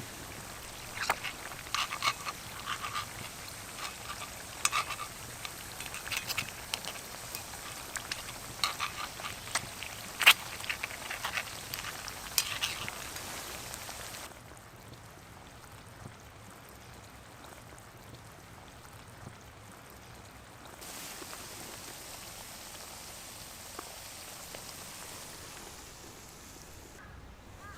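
Olive oil sizzling in a mess tin, with frequent sharp pops and crackles over the first half, then settling to a softer, steady hiss.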